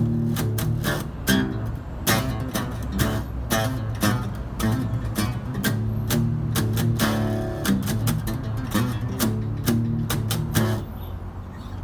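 Acoustic guitar strumming chords in an instrumental passage of a death-metal song arranged for acoustic guitar, with sharp down-strokes between ringing chords.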